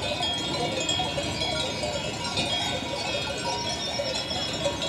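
Many small bells on a grazing flock of sheep tinkling continuously, scattered jingles coming from all over the flock.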